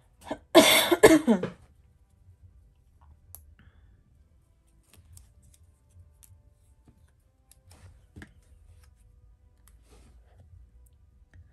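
Paper and sticker handling at a crafting desk: a loud rasping rustle lasting about a second, just after the start. Faint scattered clicks and taps follow as stickers are picked up with tweezers.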